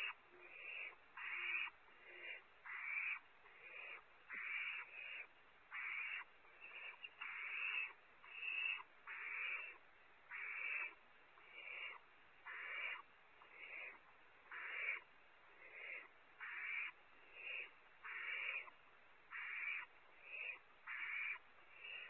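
Barn owl owlets giving raspy, hissing begging calls, one short rasp after another every half second or so, typical of nestlings competing for food.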